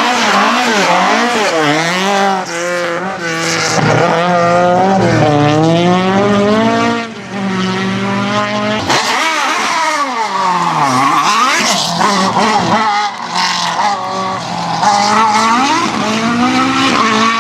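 Racing car's engine revving hard and dropping back over and over as it accelerates, shifts and brakes through a tight course, the pitch climbing and falling every second or two.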